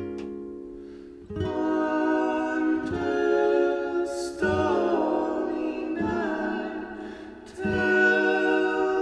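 Background music: strummed acoustic chords, a new chord struck about every one and a half seconds and left to ring.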